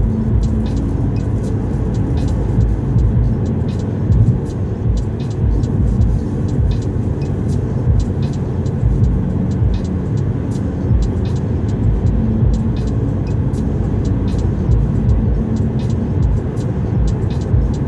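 Steady road and engine rumble inside a car's cabin at motorway speed, with tyre noise and faint short ticks on top.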